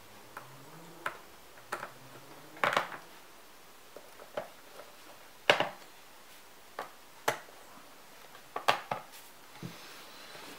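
Scattered light clicks and taps, irregular and a second or so apart, from a small screwdriver driving the last screw into a MacBook Pro's aluminium bottom case and from handling the case. The sharpest click comes about halfway through.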